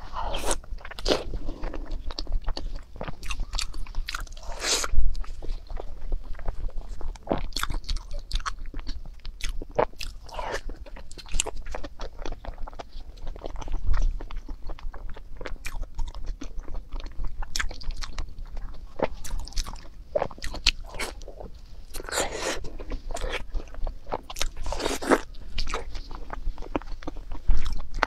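Close-miked biting and chewing of stuffed large intestine (大肠包脑, intestine wrapped around brain): a continuous run of irregular mouth clicks and smacks, with a few louder bites.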